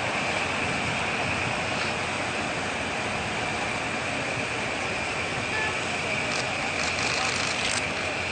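Steady city street background noise, a constant traffic-like rumble with a thin high whine held throughout, and a few faint clicks near the end.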